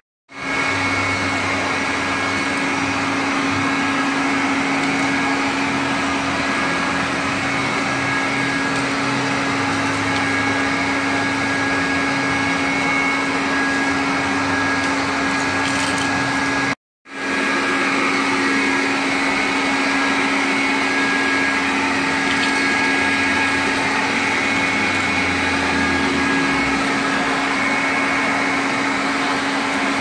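Industrial HEPA vacuum cleaner running steadily, its motor giving a constant hum and whine as the crevice tool sucks up construction dust and debris from a concrete floor. The sound cuts out abruptly for an instant twice: just after the start and about halfway through.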